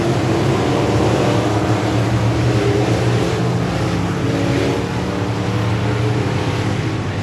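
A pack of stock race cars lapping an oval track, their engines running hard together in a steady layered drone that shifts a little in pitch as the cars come by, slightly fainter after about five seconds.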